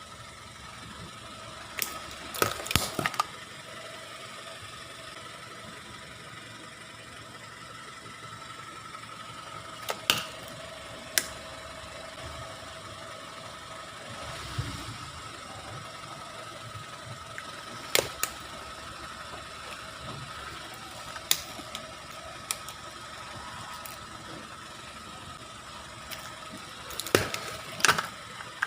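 Sharp cracking and snapping of plastic and glass electronics being crushed under a slowly rolling car's tyre, some cracks in quick clusters and some single, over the steady hum of the car's engine running.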